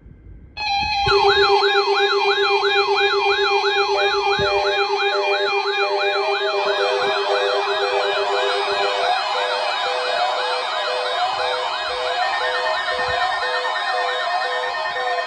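Emergency-alert alarm made of many electronic sirens layered together: wailing sweeps rising and falling about twice a second over steady tones. It starts about half a second in, and on-off beeps and further sweeping tones join as it goes on. It is the alarm signal of an emergency broadcast test.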